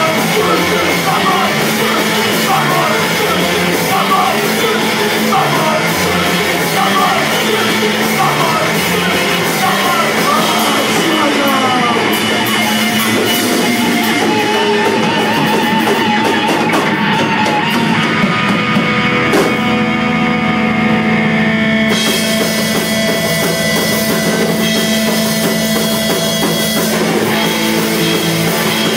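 Punk rock band playing live: distorted electric guitars, bass and a drum kit, loud and steady, with vocals over roughly the first twelve seconds and a held wavering guitar note around the middle.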